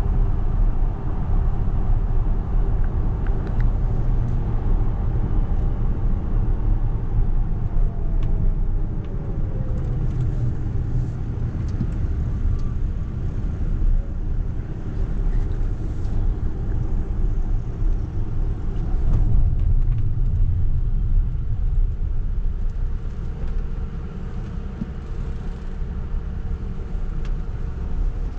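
Steady road and tyre rumble heard inside the cabin of a Tesla Model X 100D, with a faint whine that falls in pitch about eight to ten seconds in as the car slows from highway speed. The sound gets a little quieter toward the end.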